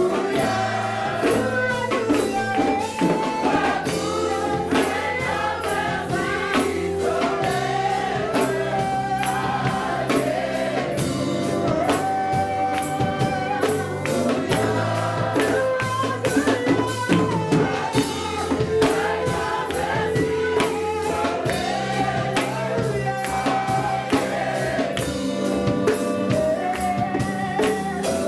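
Congregation singing a worship song together over instrumental accompaniment, with rhythmic hand clapping and percussion keeping a steady beat.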